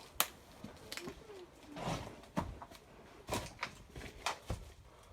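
A run of irregular sharp knocks and short scrapes, about eight in five seconds, with a longer scuffing sound about two seconds in.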